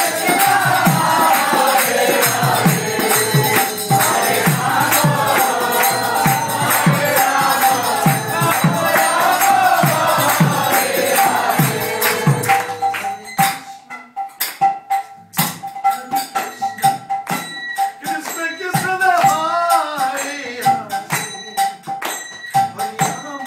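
Kirtan: a group chanting over a steady drum beat and jingling hand cymbals, which stops about halfway through. After that come scattered clinks of the cymbals and a short sung phrase.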